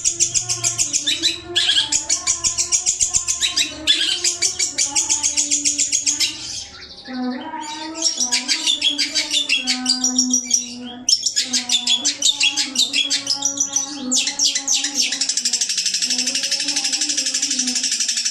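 Long-tailed shrike (cendet) song used as a training recording: fast, high, chattering chirps in long runs, broken by brief pauses, with a lower warbling line underneath.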